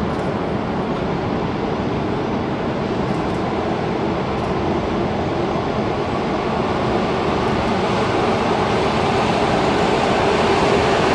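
Steady roar of dense city traffic with an electric commuter train running along the tracks, the whole growing slightly louder toward the end.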